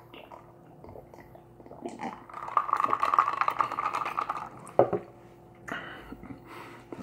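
A person's mouth and breath noise for about two seconds after a drink from a glass, then a single knock as the glass is set down.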